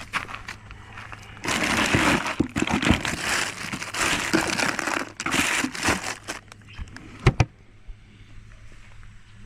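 Crinkling and rustling in loud, uneven bursts for several seconds, like packaging being handled, followed by two sharp knocks near the end.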